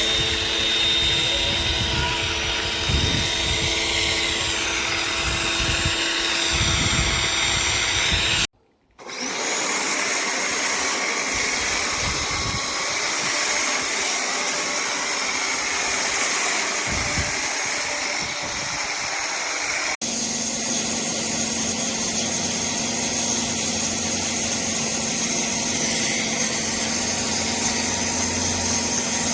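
Pressure washer running steadily, its motor humming under the hiss of the spray. The sound breaks off abruptly for half a second about eight seconds in, then resumes, and shifts in tone about twenty seconds in.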